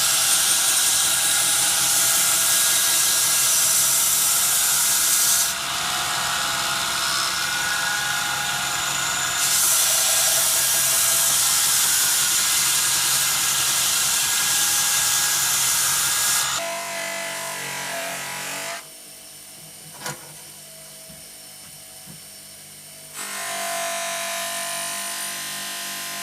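Workshop power tools running in a string of short clips, a steady motor whine with grinding or drilling noise that changes abruptly at each cut. Partway through it drops to a quieter stretch with a single sharp click, then another tool starts up.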